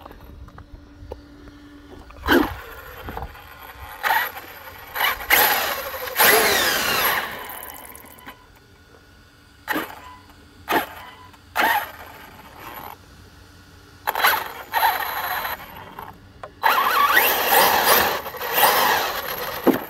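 Arrma Notorious 6S RC stunt truck's brushless motor and drivetrain whirring in two throttle blips, its wheels spinning free and then winding down, as the truck is checked over for a breakage. Short knocks from the truck being handled and set down come between the blips.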